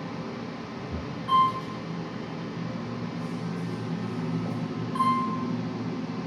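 Elevator cab running with a steady low hum, and two short single-pitch beeps from the elevator's chime about four seconds apart.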